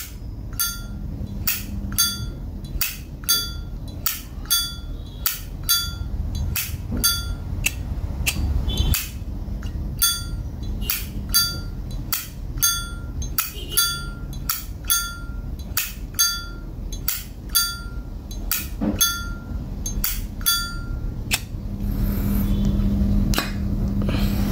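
A vintage 1989 solid-brass Zippo lighter being flicked open and snapped shut over and over, a sharp metallic click about two or three times a second, many with a short bright ring from the lid and hinge. The clicking stops a few seconds before the end.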